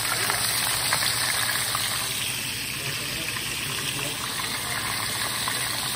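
Marinated mullet pieces frying in hot oil in a steel pan: a steady sizzle with fine crackles as more pieces go into the oil.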